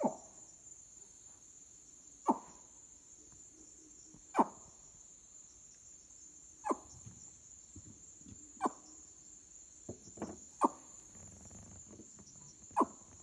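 Night insect chorus in the swamp, a steady high-pitched trill, broken about every two seconds by a short, sharp knock that stands out above it.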